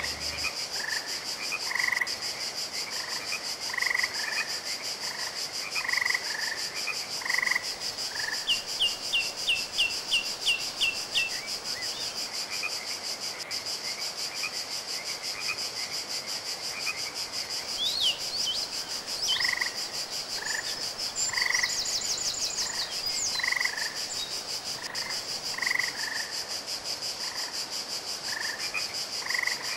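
Green water frogs croaking in a garden pond, short calls repeated about once a second, over a steady high-pitched hum. Short runs of quick high chirps come in about a third of the way through and again past the middle, while the croaking pauses.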